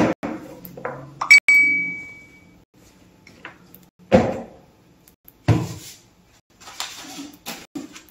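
A string of knocks and thumps with a clink about a second and a half in that rings briefly before fading.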